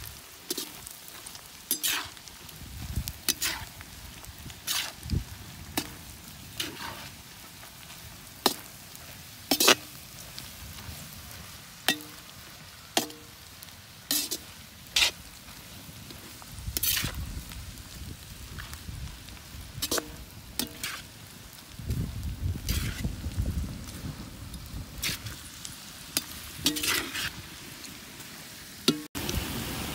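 Perforated steel skimmer scraping and clacking against an iron wok as shredded cabbage, carrot and egg are stir-fried, over a faint sizzle. The clacks come irregularly, about once a second, and twice in the second half there are stretches of low rumble.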